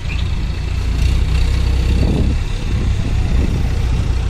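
Heavy diesel engine of the recovery machinery running steadily, a deep, even rumble.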